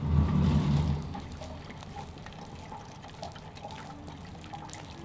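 A low rumble for about the first second as a door slides open, then a faint trickle of water from a watering can.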